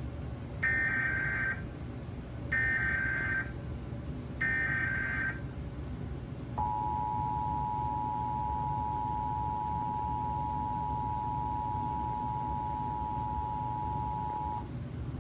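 Emergency Alert System Required Monthly Test tones: three short bursts of the SAME header's data tones, each about a second long and spaced about two seconds apart, then the EAS two-tone attention signal, a steady dual-tone hum held for about eight seconds before cutting off. A faint steady hum and hiss runs underneath.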